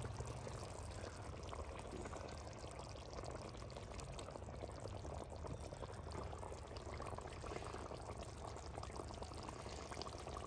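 Fish masala simmering in a clay kadhai, a soft, steady bubbling and crackle of the gravy over low heat.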